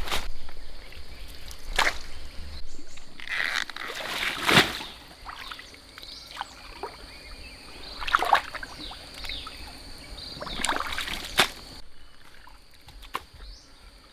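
Water sloshing and splashing in separate bursts every few seconds, the loudest about four and a half seconds in.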